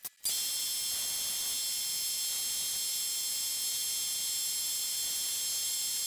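Milling machine spindle running with an end mill cutting into a brass disc: a steady high-pitched hiss and whine that starts abruptly just after the beginning and holds without change.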